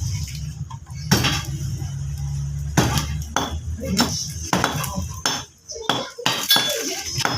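Irregular knocks and clinks of hard objects, with a low steady hum during the first few seconds and voices.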